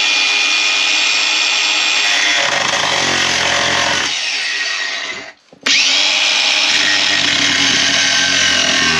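Ryobi angle grinder running and grinding into a black-painted steel floor plate to score marking lines. It cuts out for a moment about five seconds in, then spins up again and goes on grinding.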